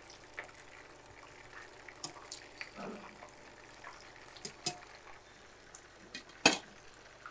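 Meatballs frying in shallow oil in a pan, a faint sizzle, with a few light clicks and knocks of tongs against the pan as they are turned. The sharpest knock comes near the end.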